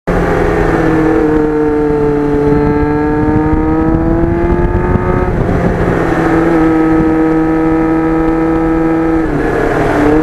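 Kawasaki GPX750R Ninja's inline-four engine running under way, its pitch climbing slowly, with a brief break about five seconds in and a short dip near the end.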